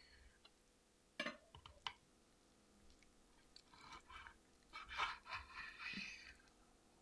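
Chef's knife cutting thin-sliced pork belly on a wooden cutting board: a couple of sharp taps of the blade on the board about a second in, then a run of soft slicing strokes between about four and six seconds in.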